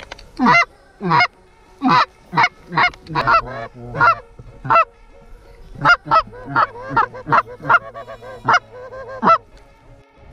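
Hand-blown goose call: a run of about eighteen short honks and clucks that bend in pitch, coming quicker in the middle, used to call birds in toward the blind.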